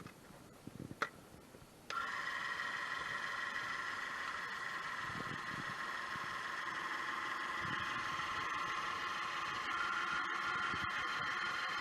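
Small electric motor, an electric car jack as the vehicle is raised, whining steadily at a fixed pitch; it starts abruptly about two seconds in, after a few faint clicks.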